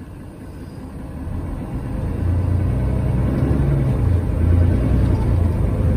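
Mercedes-Benz Citaro bus's diesel engine heard from inside the passenger saloon, building up as the bus accelerates: the engine note rises over the first two seconds, then runs loud and steady with a low drone that dips and returns.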